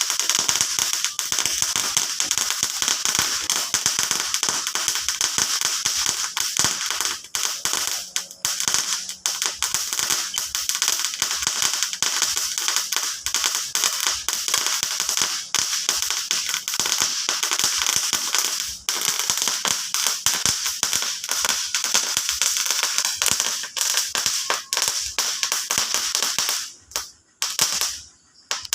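Fireworks crackling in a dense, continuous stream of rapid pops over a steady hiss. This breaks up into a few separate pops near the end.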